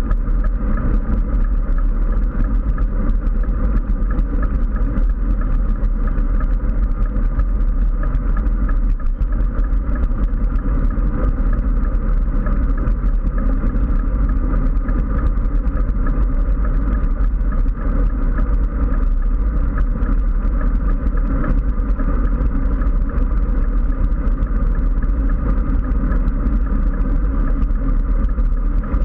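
Wind rushing over a GoPro mounted on a road bike riding at speed, with tyre noise on asphalt: a loud, steady rush, heaviest in the deep low end.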